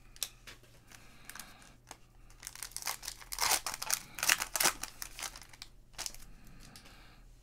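A 2020 Panini Prism cello pack of trading cards, its plastic wrapper crinkling and tearing as it is opened by hand. The crackles come in bursts, loudest around the middle, and thin out near the end as the cards come out.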